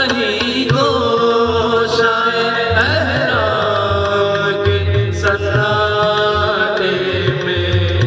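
Two male voices singing an Urdu nazm in long held, gliding notes, with musical accompaniment and a low beat underneath.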